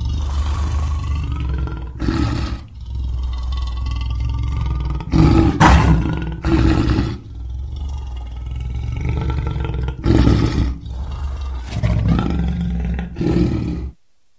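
Lion roaring: a deep, continuous growling rumble with about six louder roars swelling over it, ending abruptly just before the end.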